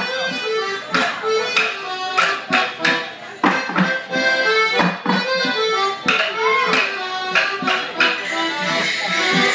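Accordion playing a lively traditional Morris dance tune, cut by frequent sharp knocks at uneven intervals.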